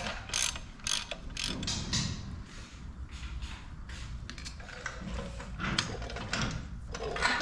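Hand ratchet wrench clicking in short strokes as bolts on a rear axle hub are worked, about two strokes a second at first, then more irregular, with light clinks of metal tools.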